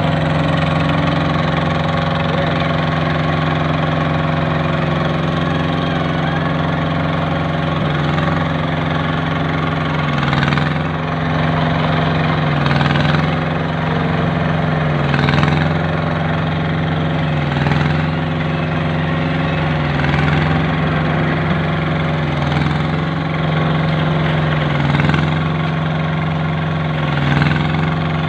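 Engine of a concrete curb-stone making machine running steadily. From about ten seconds in, its pitch dips briefly about every two and a half seconds.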